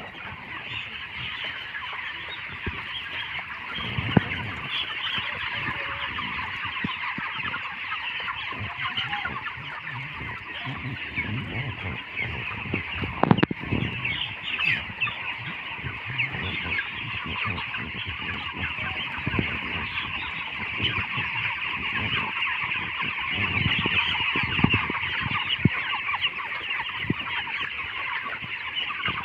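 A large flock of broiler chickens calling all at once, a dense, continuous chatter of overlapping peeps and clucks. A few sharp knocks stand out, the loudest about halfway through.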